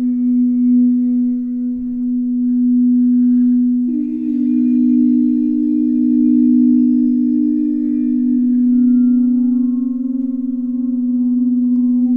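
Singing bowls ringing with a steady, sustained hum. A second, slightly higher bowl tone comes in about four seconds in, and the two tones waver against each other.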